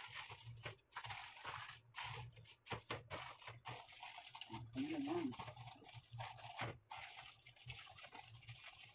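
Aluminium foil crinkling and crackling as it is pressed and folded by hand over a flan mold.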